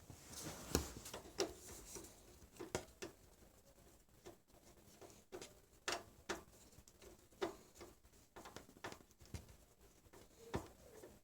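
Faint, irregular clicks and light knocks of a hard drive and metal case parts being handled and fitted into a PC case, a dozen or so taps with short gaps between.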